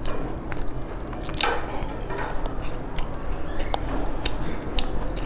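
Close-miked chewing of a sesame-coated fried pastry: mouth sounds with scattered sharp clicks and crackles, one louder crackle about a second and a half in.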